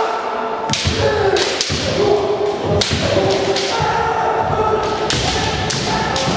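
Kendo fencers' kiai: long, held shouts, broken by about five sharp cracks and thuds of bamboo shinai strikes and stamping feet on a wooden floor, ringing in a large hall.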